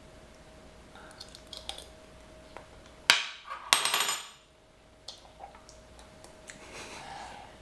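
A metal spoon clinking in a bowl of beans: a few light clicks, then a sharp loud clatter about three seconds in, followed by a second, shorter rattle of spoon against bowl.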